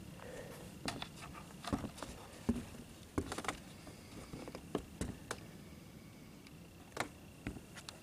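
Scattered light knocks, clicks and rustles, irregular and unevenly spaced: footsteps and handling noise on the RV roof.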